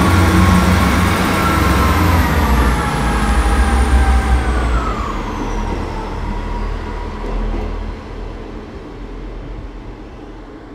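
GWR diesel multiple unit pulling out and moving away: engine and transmission running, with a high whine that falls in pitch. The sound fades as the train recedes.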